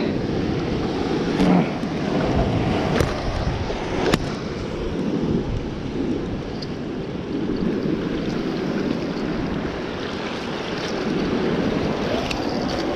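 Surf washing over a rock platform, a steady rush of water with wind on the microphone. A few sharp knocks sound in the first few seconds.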